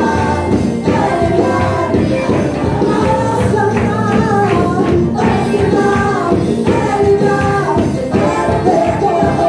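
Spanish-language gospel worship song: voices singing over instrumental accompaniment, with a tambourine.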